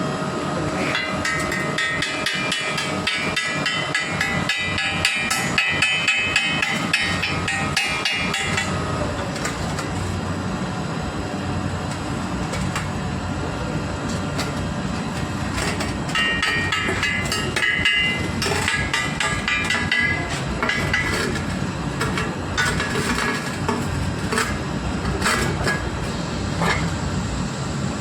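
Rapid hammer strikes on a steel pipe, ringing metallically, in two long spells with scattered blows between, over a steady machine hum.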